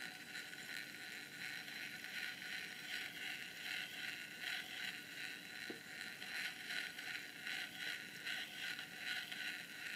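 Plastic drinking straw rubbing on the spinning rotor of a small 3D-printed magnet pulse motor, a steady soft scratchy hiss. The straw is acting as a friction brake on the rotor.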